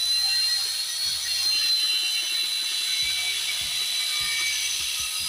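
Handheld electric circular saw cutting through a wooden plank, running with a steady high whine.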